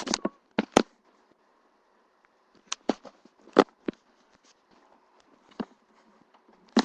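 Rain outside a window: a faint steady hiss, broken by a handful of sharp, irregular clicks and taps.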